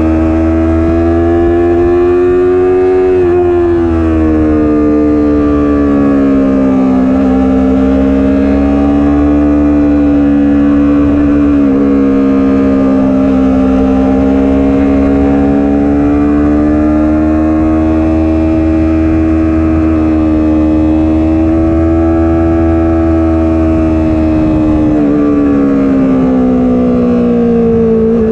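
Stock Yamaha YZF-R3's parallel-twin engine running at steady part throttle, heard from the rider's seat. Its pitch sways gently up and down, dips about three seconds in and falls again near the end as the bike slows.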